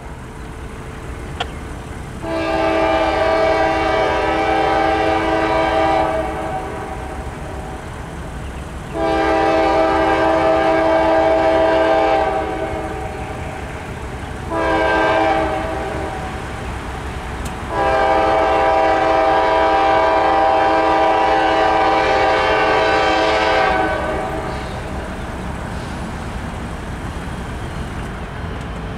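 Norfolk Southern diesel locomotive's multi-tone air horn sounding the grade-crossing signal: two long blasts, a short one, then a final long blast, over a steady low rumble.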